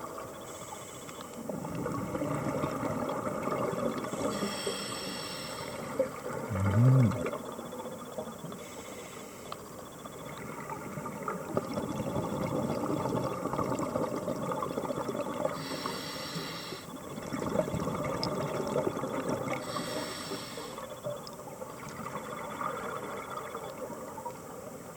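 A scuba diver's regulator breathing underwater: slow breaths with a short hiss on each inhale and a long bubbling rumble on each exhale. About seven seconds in there is a short low tone that bends upward.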